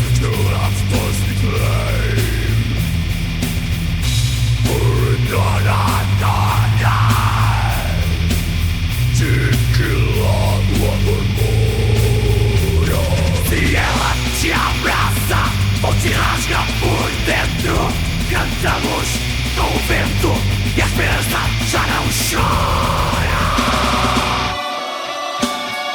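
Melodic death metal instrumental passage without vocals: a loud metal band with a melody sliding up and down in pitch over a stepping low bass line and dense drum strikes. About a second before the end, the low end drops out for a moment.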